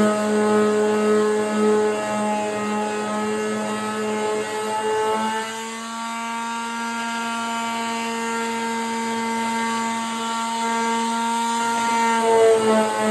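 Electric sander running steadily on a hardened Bondo patch on a door, a constant motor hum whose pitch steps up slightly about five seconds in and back down near the end as the pressure on it changes.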